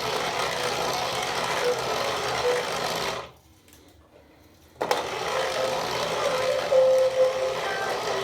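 Small electric drive motor and gears of a remote-control toy car whirring as it drives. The whirr stops about three seconds in and starts again about a second and a half later.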